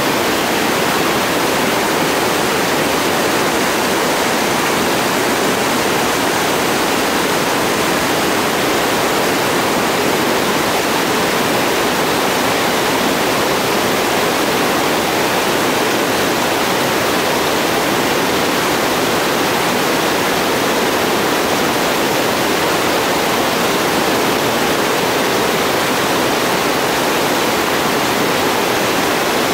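Whitewater rapids rushing: a loud, steady, even wash of water noise.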